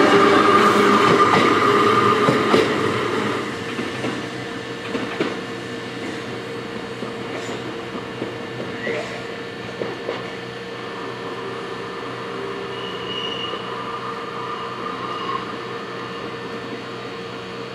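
Kotoden 500-series retro electric railcar moving through the yard tracks during shunting. It is loud at first and fades away over the first few seconds, then continues more faintly with scattered wheel clicks and faint squeals.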